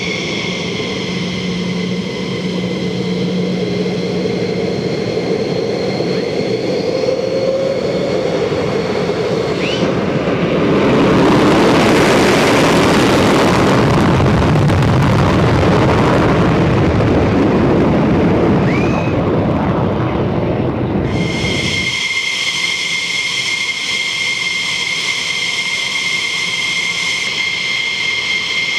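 F-15 Eagle's Pratt & Whitney F100-PW-220 turbofan engines running with a steady high turbine whine. About ten seconds in, the whine is swamped by a much louder rushing jet roar lasting about ten seconds, then a steady high whine returns.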